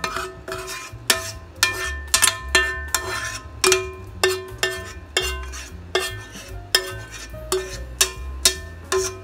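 Metal spoon knocking and scraping against a metal pan, about two sharp clanks a second, each one ringing briefly: cooked food being scraped out of a skillet into the pot of beans.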